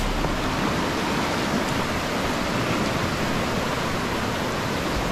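Chattahoochee River rapids running high: a steady, even rush of water.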